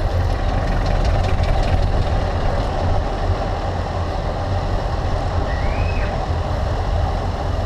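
Wind buffeting the microphone of a handlebar-mounted camera on a road bike riding along a paved street. It makes a steady low rumble, mixed with tyre and road noise.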